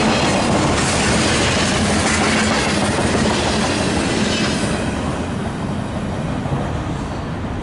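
Freight cars rolling past on the tracks, steel wheels running on rail. The last car, a tank car, clears about two-thirds of the way through, and the sound then drops off and fades as the train moves away.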